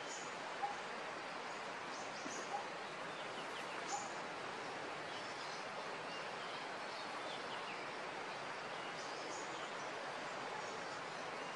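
Steady outdoor background hiss with a few short, high chirps scattered through it; the sharpest ones come about half a second and four seconds in.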